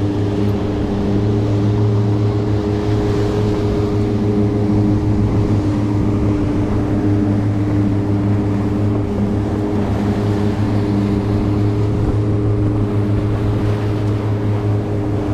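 Twin 115 hp outboard motors running steadily with the boat under way, a constant low hum, over the rush of water in the wake.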